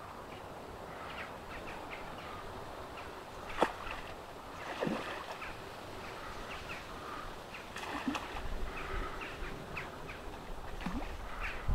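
Outdoor ambience with small birds chirping, a single sharp click about a third of the way in, and a low rumble near the end.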